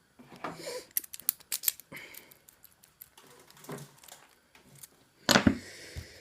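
Key being worked in a six-pin Zone Euro lock cylinder: a quick run of light metallic clicks as the key slides past the pins and turns, then scattered fainter clicks, with one louder short handling noise about five seconds in.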